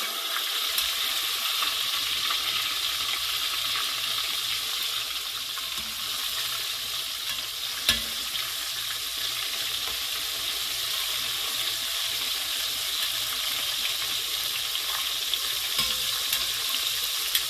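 Breaded lobster pieces deep-frying in hot oil, a steady crackling sizzle, as metal tongs turn the pieces over partway through frying to golden brown. A single sharp click about eight seconds in.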